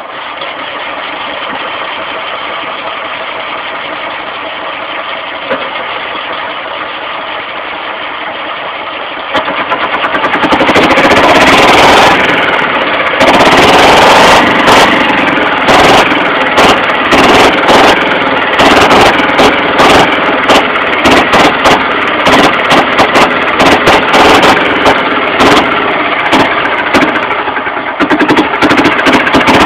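Engine of a 1959 Hanomag C112 (D611 engine) running at its first start after 34 years standing. It runs steadily, gets much louder about ten seconds in, and from about thirteen seconds runs rough and uneven with sharp knocks and pops.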